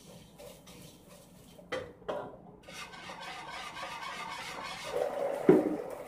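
Pots and kitchen utensils knocking twice, then a few seconds of steady scraping and rubbing. It ends in a sharp clunk about five and a half seconds in.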